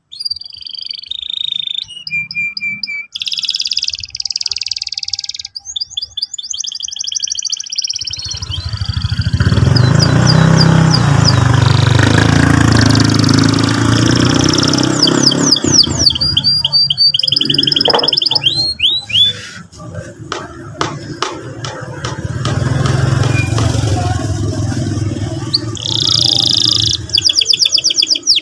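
Domestic canary singing: fast chirps and long rolling trills of rapidly repeated high notes. A loud low background sound runs beneath the song from about eight seconds in until near the end.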